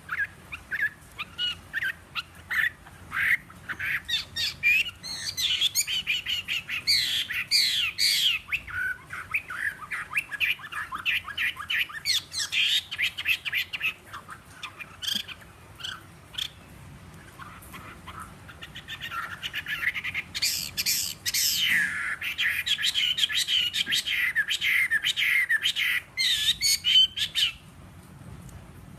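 Caged Chinese hwamei singing: fast runs of whistled and chattering notes with many quick up-and-down slurs, in two long phrases with a pause of a few seconds between them. The owner says the bird's voice is slightly hoarse.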